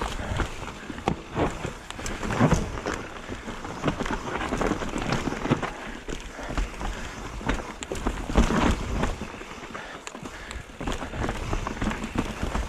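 Mountain bike rolling down a rough dirt trail: tyre noise on the ground with irregular rattles and knocks from the bike over bumps, and wind rumbling on the microphone.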